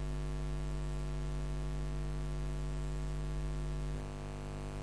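Steady electrical mains hum with a buzzy stack of overtones in the recording, and no other sound.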